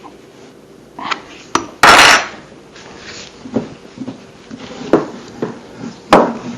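Clicks, knocks and scraping of hands working on a small electric chainsaw's bar and chain, seating the chain back onto its drive sprocket after it jumped off. A louder half-second rush of noise comes about two seconds in.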